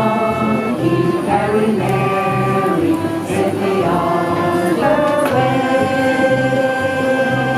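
A group of carollers singing a Christmas carol together, in long held notes.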